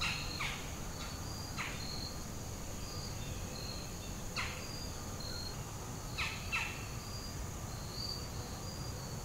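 Crickets and other insects trilling steadily in a hardwood forest, with a bird giving short calls that sweep down in pitch about five times.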